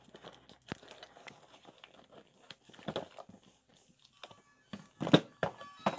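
A new set of plastic-wrapped brake pads handled and pulled out of a cardboard box: scattered rustling with knocks and clicks, the loudest about five seconds in.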